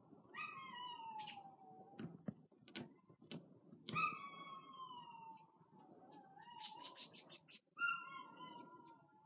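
A cat meowing: three long, drawn-out meows that slide down in pitch, with a few sharp clicks between the first two.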